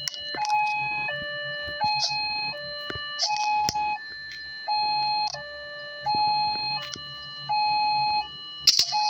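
Small electronic two-tone siren switching back and forth between a high and a low tone about every two-thirds of a second, with scattered clicks and a sharp knock near the end.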